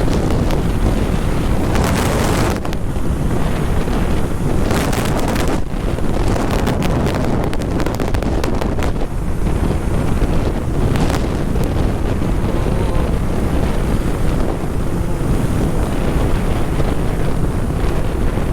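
Strong wind buffeting the microphone of a rider at speed, a loud, steady rumble with brief stronger gusts about 2, 5 and 11 seconds in.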